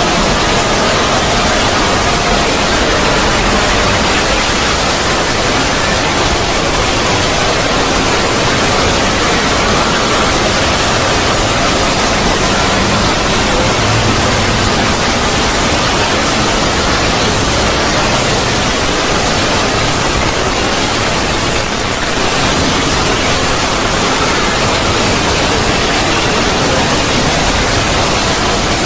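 A 'void' sound effect: a loud, steady rushing noise drone with faint held tones inside it, dipping briefly about three-quarters of the way through.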